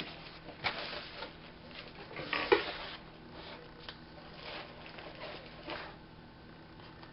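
Packaging rustling and a square pan and its parts being handled during unboxing, in scattered short rustles and clicks, with a louder clunk about two and a half seconds in.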